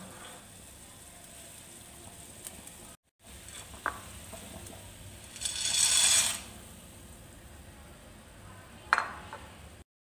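Dry fusilli pasta tipped from a glass plate into a metal pot of boiling water, a rushing, rattling pour lasting about a second midway. A sharp clink of dish against the pot comes near the end.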